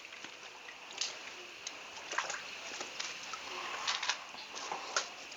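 Light water splashing and sloshing, with a few short clicks scattered through.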